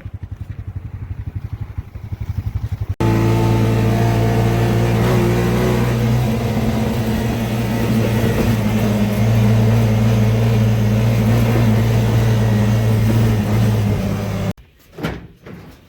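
Motor vehicle engine running steadily, a loud even hum that starts and stops abruptly, with a fast, even pulsing before it.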